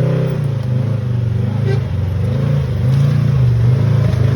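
Polaris RZR RS1 side-by-side's twin-cylinder engine running under load, its revs rising and falling repeatedly as the throttle is worked.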